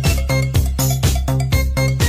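Background electronic dance music with a steady, evenly repeating beat and bass line.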